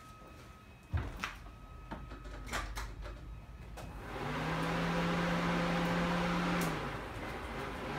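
A thump about a second in, then, with the ignition on, a steady electric whir with a hiss over it starts about four seconds in, stops near seven seconds and starts again at the end. The freshly built Honda B20 VTEC engine does not crank or fire: the owner puts this down to a starter clip that had come out.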